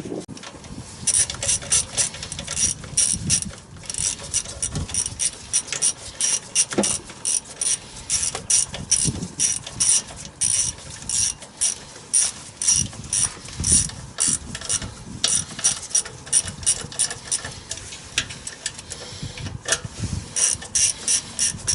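Hand ratchet wrench clicking in quick runs with short pauses, tightening the carburetor's mounting nuts onto the engine intake.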